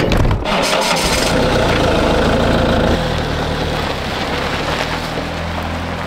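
Fiat Ducato van's engine starting with a short low burst, then running steadily as the van pulls away over gravel.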